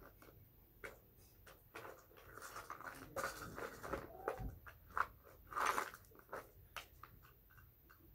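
Hands rummaging in a plastic bucket of toy jewelry: a string of small clicks and rattles, with louder rustling about three seconds in and again near six seconds.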